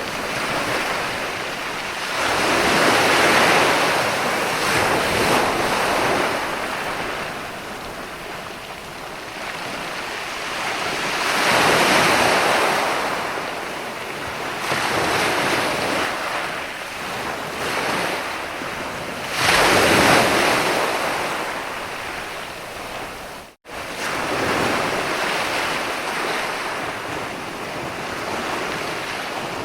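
Ocean surf: waves break and wash back in slow swells, three big surges about eight seconds apart. The sound cuts out for an instant about two-thirds of the way through.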